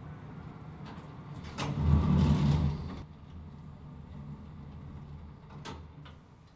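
Elevator doors sliding open: a loud rumble lasting about a second and a half, beginning with a click, over a steady low hum. A sharp click comes near the end.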